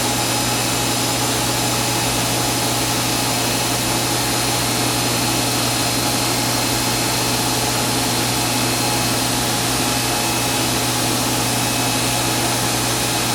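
Fadal VMC 4525HT vertical machining center's spindle running steadily at 3,000 RPM: a constant motor whine with several fixed tones over a low hum.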